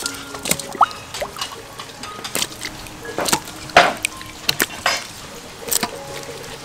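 Water splashing and dripping as wet fish are lifted out of a metal basin of wash water and laid into a stainless steel colander, with irregular splashes and knocks, the loudest about four seconds in.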